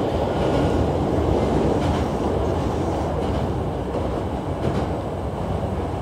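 Hankyu electric commuter train running over a steel truss bridge, heard from inside the front of the car: a steady rumble of wheels on rail, with a few faint clicks from the track.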